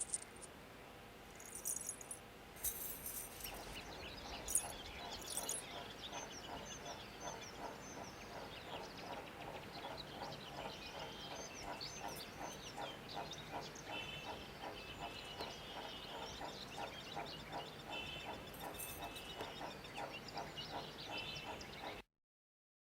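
Birds chirping and calling over a steady, evenly repeating rhythmic pulse, in a layered rural sound-effects ambience. It cuts off abruptly near the end.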